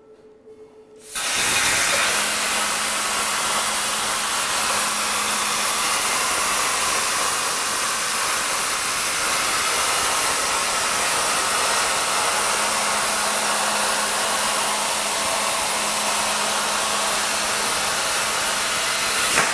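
Powermax85 plasma cutter on a CNC table cutting a straight line across 1/8 inch mild steel: a loud, steady hiss of the arc and air. It starts suddenly about a second in and drops off near the end.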